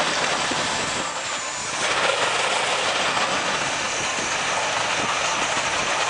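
Steam shovel at work hoisting a full bucket of earth: steady steam hiss and machinery noise, with faint knocks from the working gear. It dips briefly about a second in and comes back louder about two seconds in as the bucket rises.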